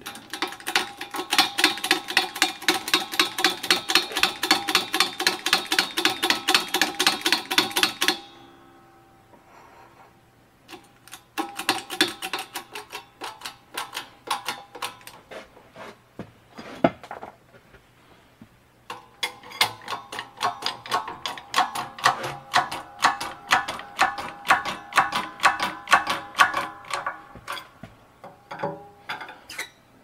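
Hydraulic shop press being worked to squeeze a battery lug onto a cable in a homemade crimping die: a rapid, regular clicking from the press's pump, about five clicks a second with a metallic ring. It comes in three runs with short pauses between.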